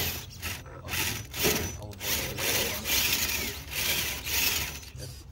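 Scale RC rock crawler with a 35-turn brushed 540 motor, its motor and geared drivetrain running in a string of short throttle bursts as it works its way up a rock step.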